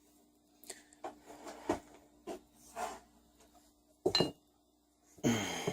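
Metal engine parts being handled on a workbench: a series of light knocks and clinks, with one sharper metallic clink about four seconds in that rings briefly, and a short scraping rustle near the end.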